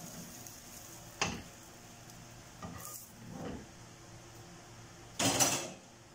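Kitchen utensil clatter as a fried egg omelette is lifted out of a non-stick frying pan with a plastic spatula and set aside: a sharp knock about a second in, a few lighter knocks, and a louder half-second rush of noise near the end.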